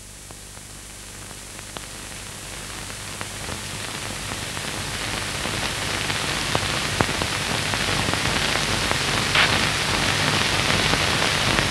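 Steady rushing hiss that swells gradually louder, with a few faint clicks scattered through it.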